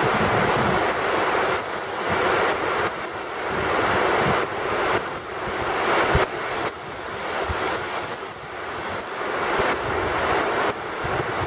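Heavy thunderstorm rain pouring down in a strong wind, the rush swelling and easing in gusts, with wind buffeting the microphone in low thuds.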